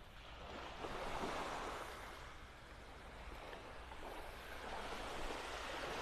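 Small waves of gentle surf breaking and washing up onto a sandy beach, swelling about a second in and again near the end.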